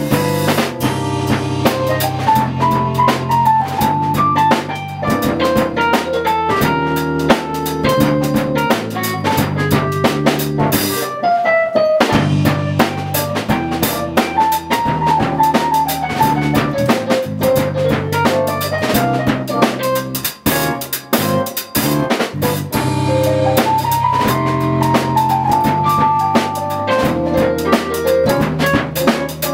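Jazz trio playing live: drum kit with kick, snare and rimshots under keyboard and guitar, a melody line rising and falling over low held notes. The playing thins briefly about two-thirds of the way through, then the full band comes back in.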